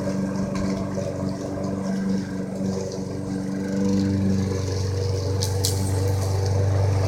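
Engine of a remote-control lawnmower running steadily, its note shifting deeper and stronger about four seconds in; a couple of short clicks come near the end.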